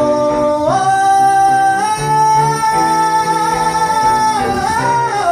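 A man singing a long held note over instrumental accompaniment. The voice steps up to the note about a second in, holds it for around three and a half seconds, then slides up and falls away near the end.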